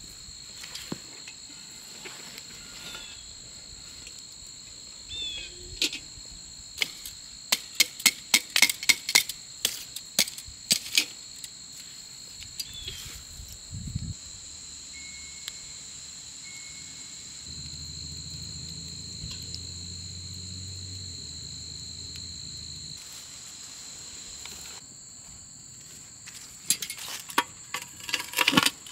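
Metal tongs clinking and scraping on a cast-iron Dutch oven lid as hot coals and ash are cleared off it, in two bursts of rapid sharp clicks, the second near the end. Crickets chirp steadily in the background.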